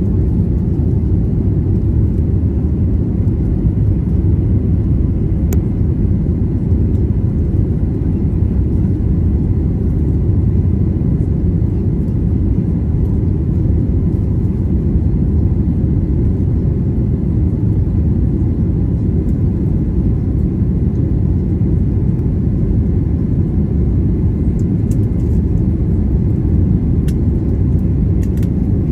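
Steady low drone of engine and airflow noise heard inside the cabin of an Airbus A320neo, unchanging throughout, with a faint steady whine above it and a few faint clicks.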